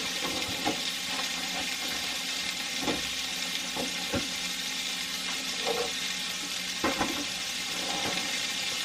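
Hamburger patties sizzling steadily as they fry, with scattered small pops and clicks.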